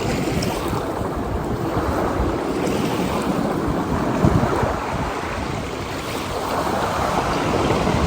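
Strong wind buffeting the microphone in gusts with a low rumble, over the steady rush of surf breaking on the beach.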